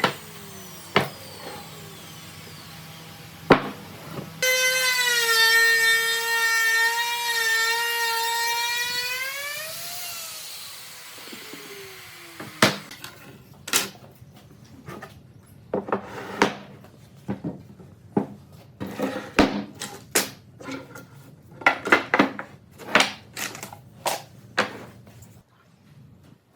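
A high-pitched electric power tool motor runs steadily for about five seconds, then winds down. A few sharp clicks come before it, and a long string of irregular sharp knocks and taps follows.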